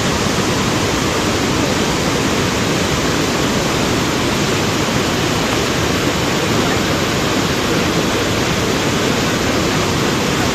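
Ghaggar river in spate, its floodwater rushing steadily and loudly.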